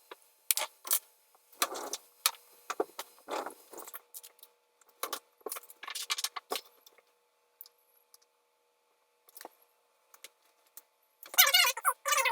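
Scattered clicks, knocks and rattles of metal parts and cables being handled, jangling like keys. About eleven seconds in, a short, louder pitched sound.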